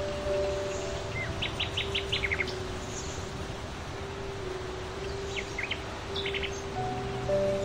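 Nestling birds begging with two quick runs of short, high chirps: the first about a second and a half in, the second about five and a half seconds in.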